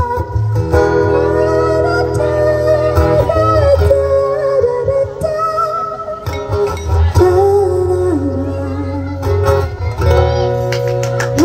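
A woman singing live to her own acoustic guitar, amplified through a microphone and PA speakers, with long held notes in the melody.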